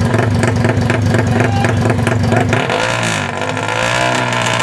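Drag-race motorcycle engine held at steady revs with a rapid, choppy beat. About two and a half seconds in it is revved up and down, its pitch swinging in waves.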